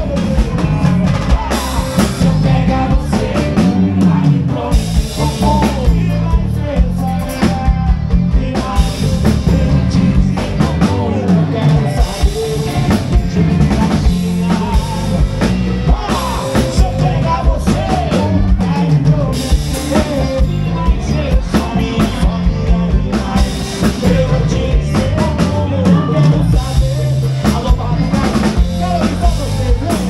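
Band music with a steady drum-kit beat and a singing voice.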